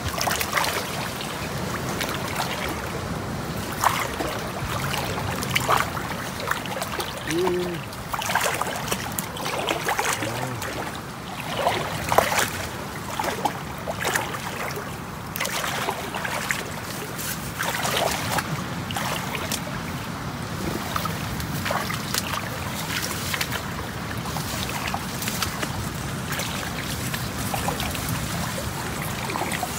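River water sloshing and splashing close by, with irregular sharp splashes and drips over a steady rush of flowing water.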